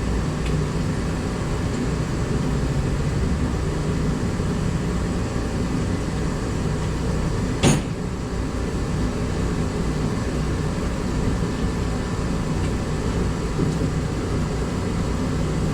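Steady low mechanical hum of a fan or air-handling unit running, with one sharp knock about halfway through.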